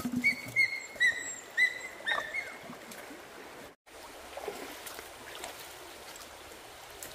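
Short, high chirping calls from a small animal, about two a second, for the first couple of seconds. After a sudden break, a steady rushing noise like flowing water.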